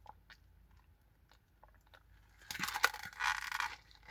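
Paper fast-food packaging being rustled and handled during a search for a straw: faint small clicks, then about a second and a half of loud crinkling rustle in two surges, ending in one sharp click.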